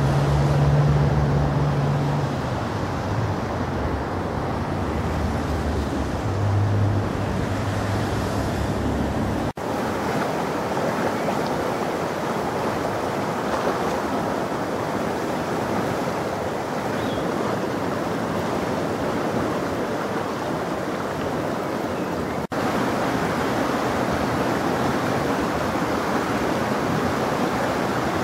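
The Water of Leith in spate, its fast floodwater rushing and churning in a steady, even noise. A low hum lies under the water for the first nine or ten seconds. The sound breaks off abruptly for an instant twice, about ten and twenty-two seconds in.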